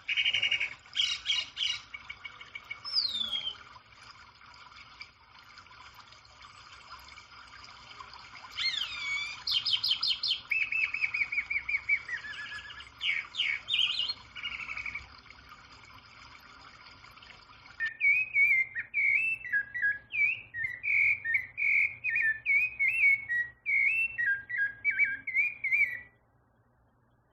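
Songbirds singing: loud whistled and chirped phrases with pauses over a steady background hiss, then, from about 18 s, a different bird's quick, varied warbling song that stops shortly before the end.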